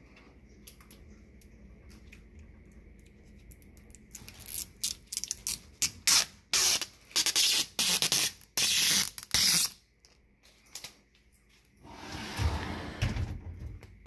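Protective plastic film being peeled off a dishwasher rack's stainless trim, crackling in a quick run of sharp bursts starting about four seconds in and stopping around ten seconds. A duller handling rustle follows near the end.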